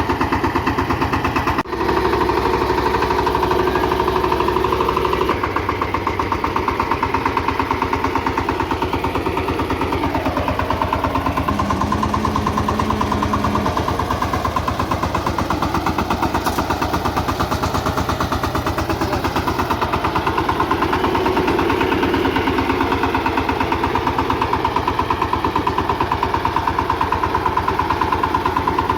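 VST Shakti 130 DI power tiller's single-cylinder diesel engine running steadily while cultivating, a rapid, even chugging of firing strokes, with a brief break about two seconds in.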